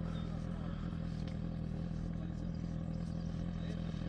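An engine running steadily at a constant speed: a low, even hum with no revving.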